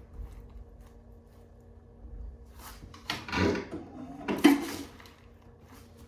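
Chiropractic adjustment: two short bouts of body and treatment-table movement, about three seconds in and again a second later, the second opening with a sharp crack.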